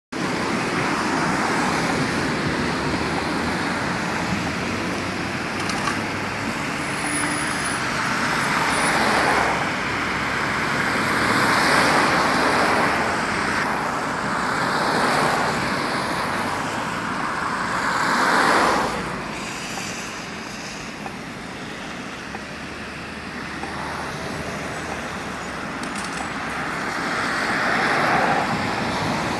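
City traffic: cars passing one after another over a steady traffic hum, each swelling and fading. An LM-99AVN tram runs past close by at the start, and another tram's approach grows louder near the end.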